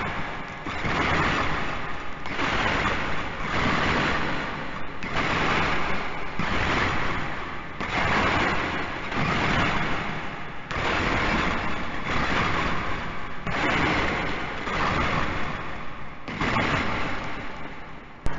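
Metal chains rattling and clanking in repeated bursts, about one every second and a half: the chain sound effect of a slave's shackles.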